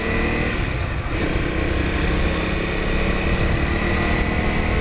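Honda dual-sport motorcycle's single-cylinder engine running under way, heard over road and wind noise, with the engine note shifting about a second in.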